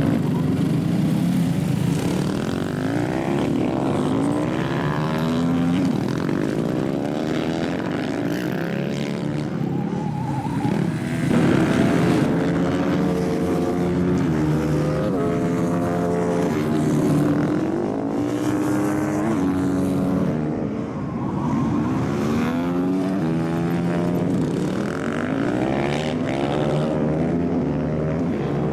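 Several supermoto motorcycles racing on a tarmac track. Their engines overlap and rise and fall in pitch over and over as the bikes accelerate and back off.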